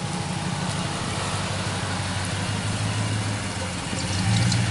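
Dodge Ram 1500 pickup's engine running steadily at low revs as the truck creeps along a dirt trail. It gets a little louder about four seconds in as the truck draws alongside.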